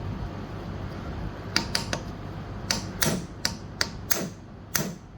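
A hammer striking a hand impact driver: about nine sharp blows, starting about a second and a half in and coming at an uneven pace. The blows are trying to break loose a stuck screw.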